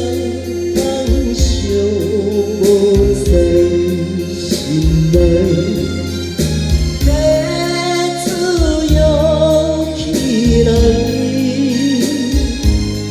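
A singer practising a Taiwanese Hokkien ballad over a karaoke backing track, with a steady drum beat under the vocal line.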